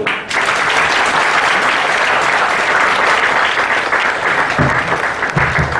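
Audience applauding: dense, steady clapping from many hands that starts right after the closing words.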